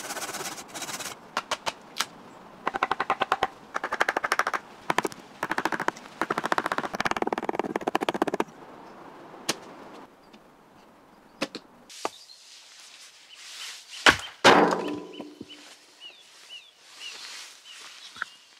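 Sped-up timelapse sounds of wood being worked: fast trains of clicks and scrapes, coming in bursts, then scattered single clicks. About fourteen seconds in there is a sharp knock followed by a short ringing sound, and a bird chirps repeatedly near the end.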